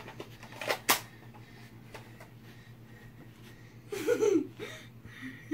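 Two quick, sharp clicks from a Nerf blaster just under a second in, then a child's short giggle about four seconds in.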